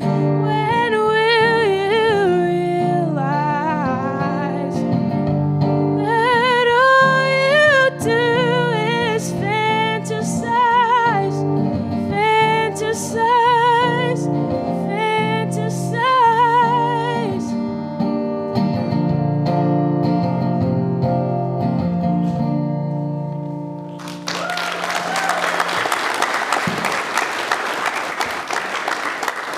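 A singer's closing vocal lines over an instrumental accompaniment, which plays on alone for several seconds after the voice stops. With about five seconds to go the audience breaks into applause.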